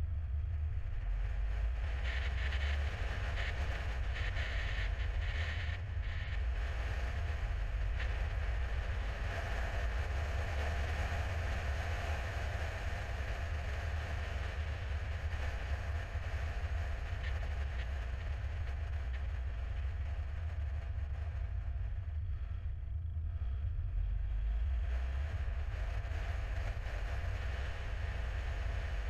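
A car driving, heard from inside the cabin: a steady low rumble of engine and tyres with road hiss above it.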